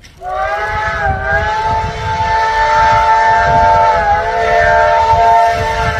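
CT273 steam locomotive's whistle blowing one long, loud blast, a chord of several tones that dips slightly in pitch twice, over a low rumble.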